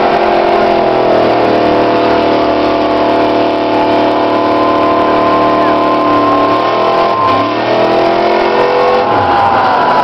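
Demolition-derby car engines held at high revs, running loud and steady, with the pitch sagging and picking back up about two-thirds of the way through, then wavering near the end.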